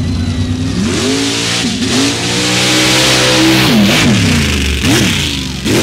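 Mud bog 4x4 truck's engine revving hard as it launches and drives through the mud pit, its pitch climbing and dropping several times, with the rush of spinning tyres throwing mud loudest in the middle.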